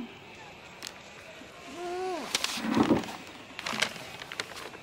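A girl's sleepy, wordless groan as she wakes and stretches, the pitch rising then falling, followed by a short rustle and a few light clicks.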